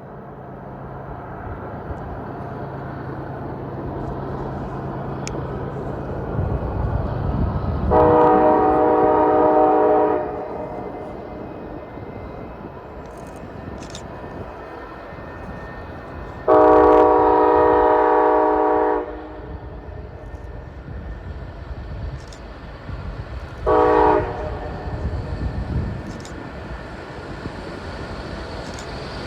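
Union Pacific SD70AH Tier 4 diesel locomotive approaching a grade crossing, its engine rumble growing louder, sounding its multi-tone horn in the crossing signal: two long blasts and a short one, echoing.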